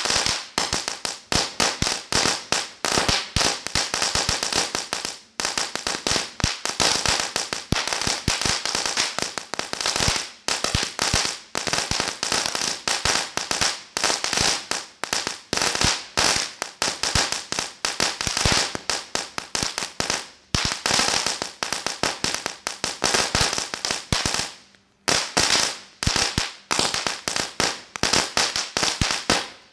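Cracker Barrel firework going off: a rapid, irregular string of firecracker bangs and crackles, breaking off once for a moment about 25 seconds in before carrying on.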